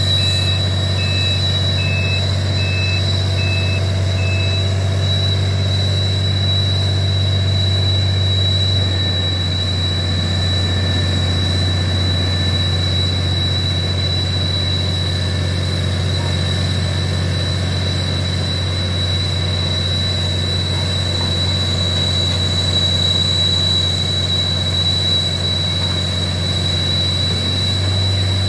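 Crawler blasthole drill rig running steadily: a loud, deep engine drone with a thin, steady high whine over it. A beeping alarm sounds about twice a second for the first four seconds or so.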